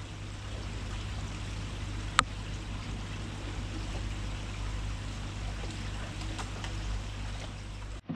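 Steady low hum under an even rushing noise like running water, with one sharp click about two seconds in.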